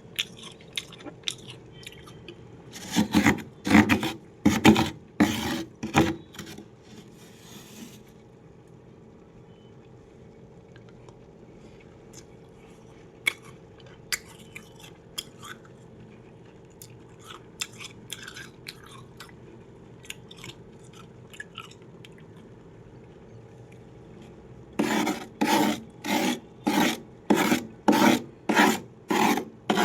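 Freezer frost being scraped in rasping strokes: a quick run of about seven strokes a few seconds in, then scattered small crackles and clicks, then a steady run of about two strokes a second near the end. A steady low hum lies under it all.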